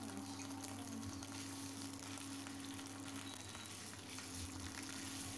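Faint sizzling of whole spices, green chillies and ginger paste frying in hot oil in a non-stick pan, under a steady low hum that breaks off briefly a little past three seconds in.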